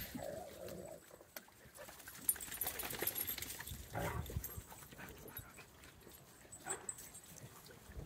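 A pack of dogs moving about, with a short whine from one dog near the start and scattered small scuffs and knocks.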